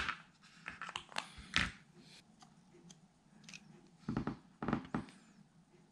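Light clicks and taps of plastic lens-barrel parts handled by hand: the opened inner assembly of a Sony Zeiss 24-70mm f/4 lens being turned and gripped. The clicks are scattered and irregular, with a small cluster a little after the fourth second.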